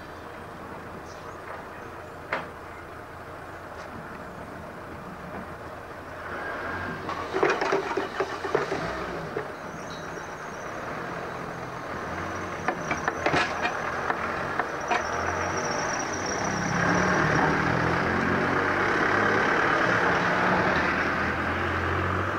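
Level-crossing gates swung by hand, with clanks and knocks as they move and latch, loudest about a third of the way in and again just past halfway. An engine runs under it, growing louder about three quarters of the way through.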